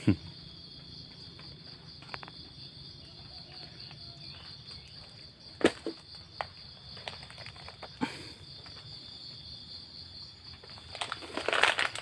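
Insects chirring steadily in a high, finely pulsing drone, with two sharp clicks in the middle and footsteps crunching through dry leaves and undergrowth near the end.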